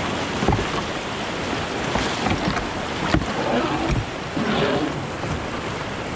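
Rushing whitewater of a river rapid washing around a rowed raft: a loud, steady wash of water noise broken by a few dull thumps.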